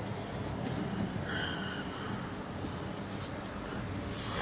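Car idling in a drive-thru lane with the window down: a steady low rumble, a short faint tone about a second and a half in, and a brief rush of noise near the end.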